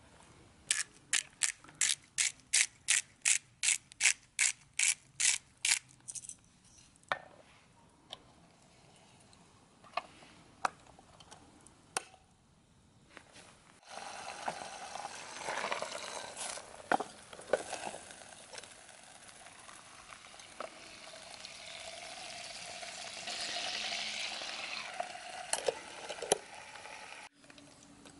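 A run of sharp, evenly spaced clicks, about three a second for five seconds, then a few scattered clicks. About halfway through, cartilage pieces start sizzling in a closed hot sandwich maker over charcoal, and the sizzle grows louder.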